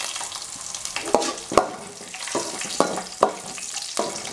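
Cashews and raisins frying in ghee: a steady sizzle, with a perforated steel spatula stirring and clinking against the metal pan about six times.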